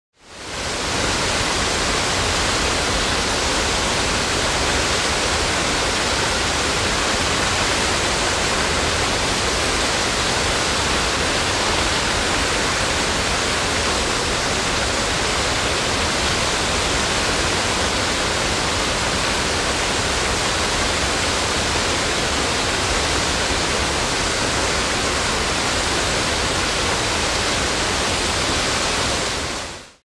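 Waterfall heard close up: a steady, dense rush of falling water. It fades in over the first second and out at the very end.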